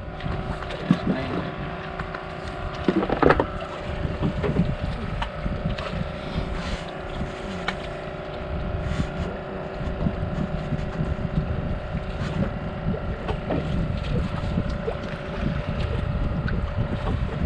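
Wind buffeting an action camera's microphone over the steady drone of a boat engine, with a brief knock about three seconds in.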